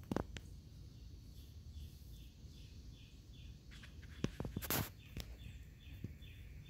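Quiet outdoor ambience with a steady, high chirping repeated about two or three times a second, over a low rumble, with a few sharp knocks just after the start and a louder brief rustle around four to five seconds in.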